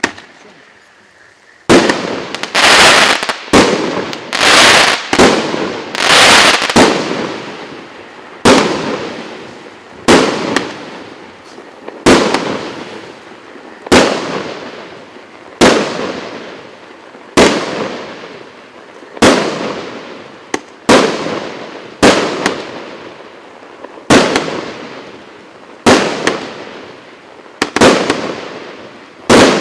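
OS8226 'Sochelnik' 19-shot fireworks battery (1.1-inch, 28 mm calibre) firing its shots in sequence. Each shot is a sharp bang with a fading tail. A quick cluster of shots comes in the first several seconds, then single shots roughly every two seconds.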